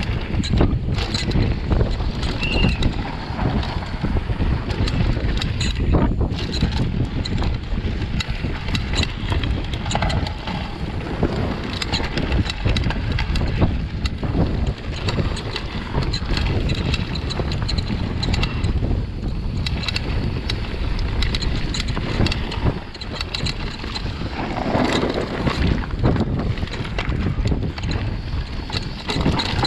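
Downhill mountain bike at speed on a dry dirt trail, heard from a chest-mounted camera: a continuous rumble of wind buffeting the microphone, with the tyres on dirt and stones and a constant clatter of knocks as the bike rattles over bumps.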